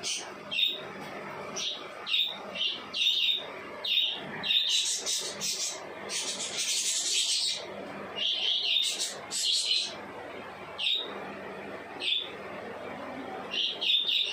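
Small birds chirping: a string of short, high chirps at irregular intervals, roughly one a second.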